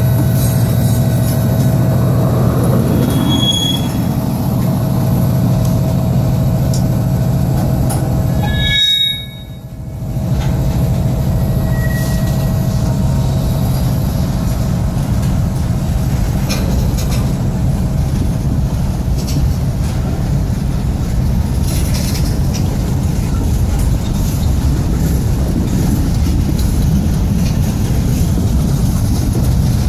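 Freight train passing close by. A diesel locomotive goes past at the start, followed by the steady rumble and clatter of freight-car wheels on the rails, with a few short high wheel squeals. The sound drops briefly about nine seconds in.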